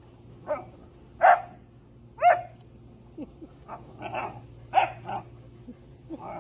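Great Dane barking: about half a dozen short, sharp barks at irregular spacing, during a game of fetch.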